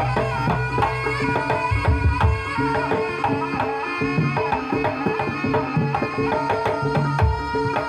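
Javanese jaranan ensemble music: hand drums play a busy rhythm over ringing, sustained pitched tones from the melodic instruments.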